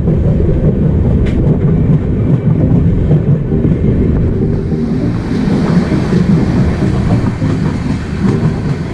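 A moving LHB passenger coach rumbling along the rails, heard from aboard the train, with faint wheel clicks. A rushing hiss grows louder about halfway through.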